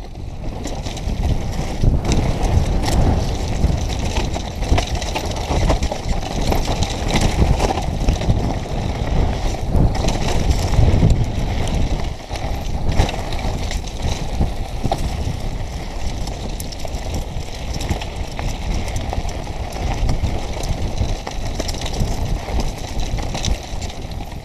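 Mountain bike descending a rough, rocky dirt trail, heard from a camera riding along: steady low rumble of wind buffeting the microphone and tyres running over gravel and stones, with constant small rattles and clicks from the bike bouncing over bumps.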